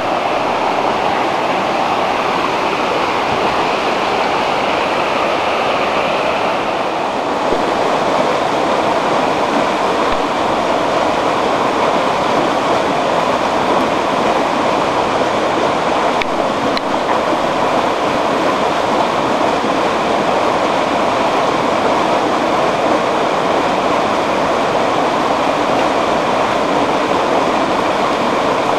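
The Whitewater River rushing over rapids: a loud, steady rush of water noise.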